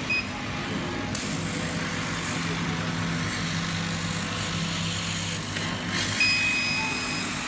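CNC laser cutting machine running a cut: a steady machine hum with hissing air noise that comes in about a second in. A short electronic beep sounds at the start and a longer beep about six seconds in.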